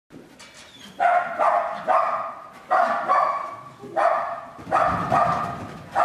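A dog barking repeatedly: about eight sharp barks starting about a second in, each sudden and fading, roughly half a second to a second apart.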